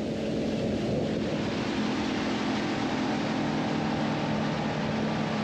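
Boat motor running steadily while the boat is underway, with wind on the microphone and rushing water; the wind and water noise grows about a second in.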